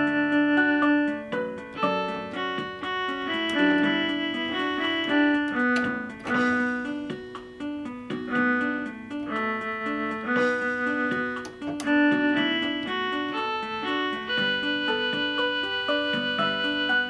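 Electronic keyboard playing in a piano voice: a melody played by hand over the keyboard's built-in demo-song accompaniment, with notes changing every half second or so.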